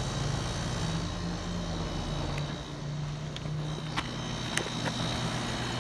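Goodman 1.5-ton heat pump outdoor unit running in cool mode: a steady low hum from the compressor and condenser fan, with a faint steady high tone over it.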